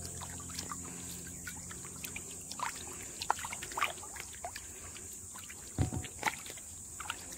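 Calm river water splashing and sloshing close to the microphone as a person moves through it, with small irregular splashes and a louder double splash about six seconds in.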